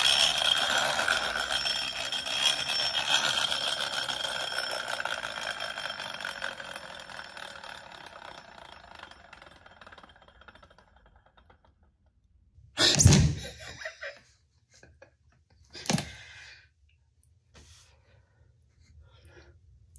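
Large hand-built flywheel toy car's gear train and spinning flywheel whirring and rattling as it runs, fading away over about ten seconds as the flywheel spins down; the builder thinks the rattle means a poorly chosen or badly meshed gear. A few seconds later, two short loud bursts about three seconds apart.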